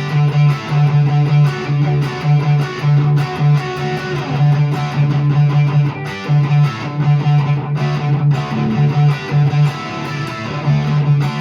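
1989 Fender HM Strat electric guitar played through a Peavey Classic 50 amp and a Marshall 1965A 4x10 cabinet, in a rhythm of repeated low notes about three a second.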